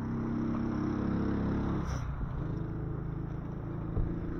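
Car engine and road noise heard from inside a moving car, a steady low hum whose engine note shifts about two seconds in. A short knock sounds near the end.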